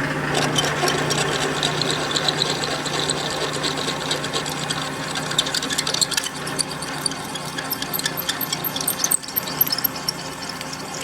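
Milling machine drilling steel: the spindle motor runs with a steady hum while the bit cuts, with a constant crackle and scrape of chips. The hum drops away about six seconds in as the cutting noise carries on.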